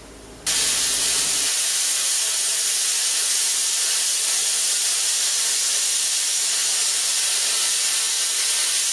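Plasma cutter torch cutting 3 mm steel plate on 100 PSI compressed air: a steady, loud hiss of the arc and air jet that starts suddenly about half a second in.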